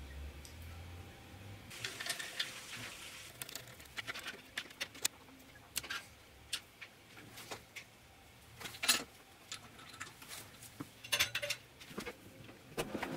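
Irregular clinks and knocks of small metal parts and tools being handled, with the loudest knocks about nine seconds in and near the end.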